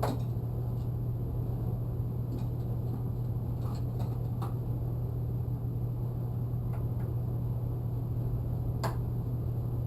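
Steady low hum in the background, with a few faint clicks and taps from a screwdriver being worked against tight screws.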